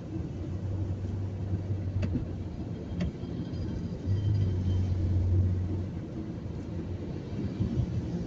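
Car driving on a wet highway, heard from inside the cabin: a steady low rumble of engine and tyres on the wet road, swelling a little midway. Two light clicks about two and three seconds in.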